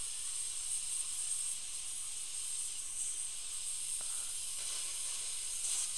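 Dental handpiece spinning a finishing bur against a new composite filling, a steady high hiss, while the filling's biting surface is shaped.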